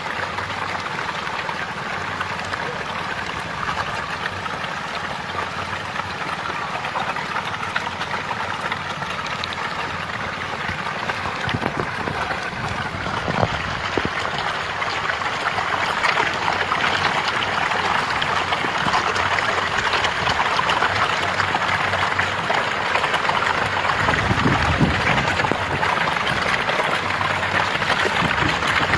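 A dense mass of fish thrashing and splashing together in shallow water, making a continuous churning, gurgling noise. It grows a little louder about halfway through.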